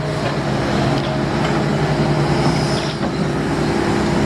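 Heavy construction machinery engine running steadily, a low even hum under a dense mechanical noise.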